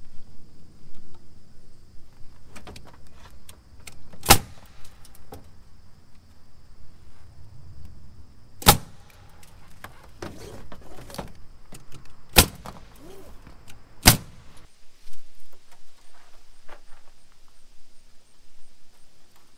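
Nail gun firing four single sharp shots a few seconds apart, fastening pine shiplap boards, with quieter knocks and clatter of boards and tools being handled between the shots.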